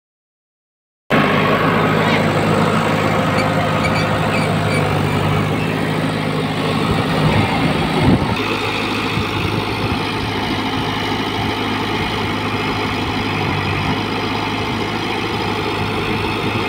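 JCB backhoe loader's diesel engine running steadily at close range. It cuts in abruptly about a second in after dead silence. A single sharp knock comes about eight seconds in.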